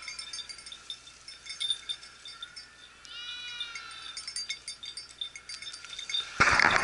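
Hunting dog's bell tinkling in quick irregular jingles as the dog works the brush, with a drawn-out bleat from livestock about three seconds in. A loud rush of noise starts near the end.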